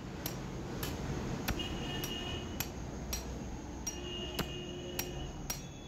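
Light hammer taps on a steel drift, about two a second, driving a tapered roller bearing down onto a differential crown-wheel carrier to seat it. Several taps leave a brief metallic ring.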